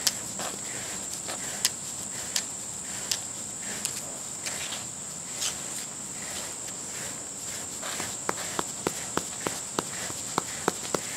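Rubber brush strokes on a short-haired dog's coat: scattered short scratchy strokes, then a quicker even run of about three or four strokes a second near the end. A steady high-pitched insect drone runs underneath.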